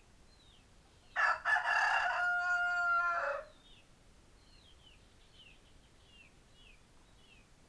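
A rooster crowing once, about a second in: a rough opening followed by a long held note lasting about two seconds. Faint short falling chirps of a small bird repeat in the background.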